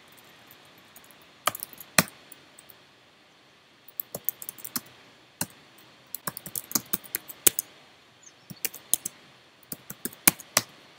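Typing on a computer keyboard in irregular bursts of quick keystrokes with short pauses between, and a few louder single key clicks among them.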